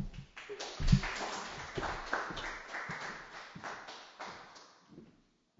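Scattered applause from a small audience, a dense patter of claps that thins and fades out near the end, with one low thump about a second in.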